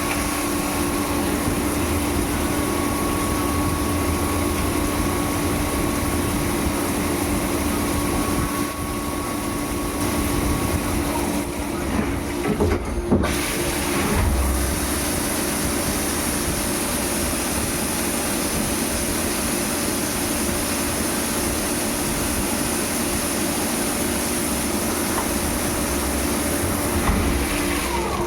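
A machine running steadily, a constant motor hum with a few steady tones over a hiss, with a short irregular clatter about twelve seconds in.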